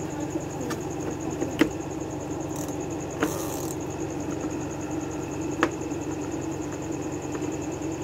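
White Westinghouse CSW6000 semi-automatic washing machine's wash motor running with a steady hum and a faint high whine. Three short clicks about a second and a half, three and a half, and five and a half seconds in come from a control knob being turned.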